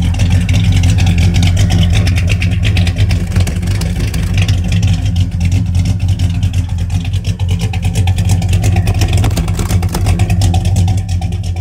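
Big-block Ford V8 idling low, at about 450 RPM, heard close at the exhaust tailpipes as a steady low note with fast, even pulses.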